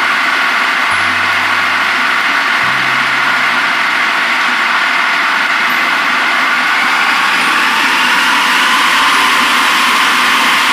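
Electric food processor running steadily, its blade puréeing a chilled chicken forcemeat into a smooth paste; the motor's pitch rises slightly in the second half.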